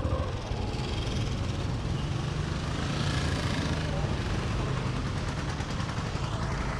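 Street traffic noise, with a vehicle engine running close by that hums loudest a couple of seconds in.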